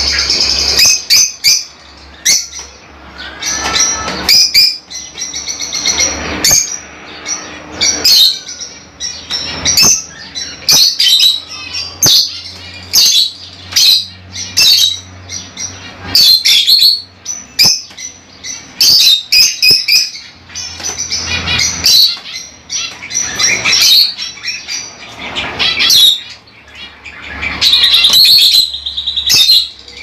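Lovebirds calling: a rapid, irregular run of short, high-pitched chirps and screeches with brief pauses between bursts.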